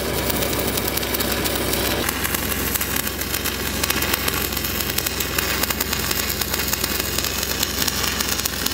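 Stick welding arc crackling steadily as an 8010 Pipeliner rod runs the hot pass on steel pipe, over the steady drone of an engine-driven welding machine.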